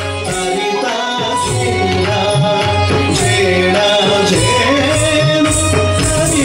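Odissi classical dance music: hand-drum strokes keep a steady rhythm under a sung melody, with repeated bright metallic jingles above.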